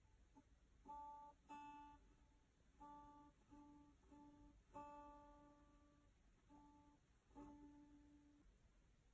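Acoustic guitar played softly, about eight single notes plucked one at a time, mostly the same note, each ringing briefly and fading.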